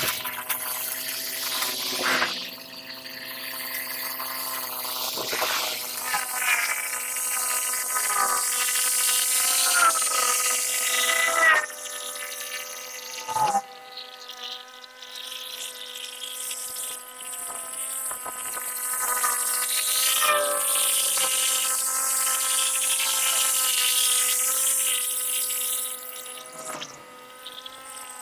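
Remote-controlled mower's small engine and cutter running while mowing thick grass. The pitch dips briefly and recovers every few seconds as the load comes on, over a steady high hiss of cutting.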